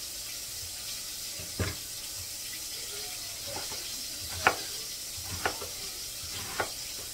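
A chef's knife cutting through cabbage into a wooden cutting board: about five separate strokes at an uneven pace, the loudest about halfway through. Under them runs a steady sizzling hiss of fish frying in a deep fryer.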